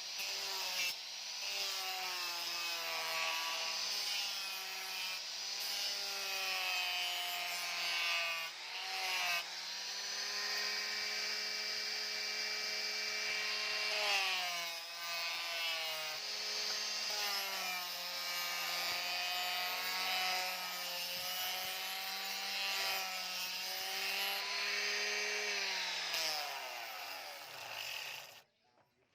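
Electric grinder running against steel, its motor whine dipping and recovering in pitch as it is pressed into the work. Near the end it winds down with a falling pitch and stops.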